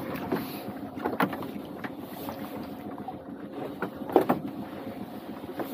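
Small fishing boat's engine humming steadily while a pot rope is hauled in by hand over the side, with a few sharp knocks of gear against the hull, the loudest about a second in and about four seconds in.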